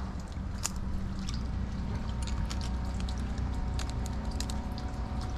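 Barnacles being scraped and pried off a mangrove root with pliers: irregular small clicks and scrapes over water sloshing around the roots, under a low steady rumble.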